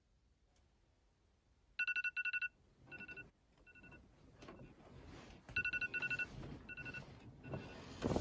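An electronic alarm tone beeping in a repeating pattern: a quick run of high beeps, then two single beeps, heard twice. Between the beeps comes the soft rustle of bedding as someone stirs under the covers.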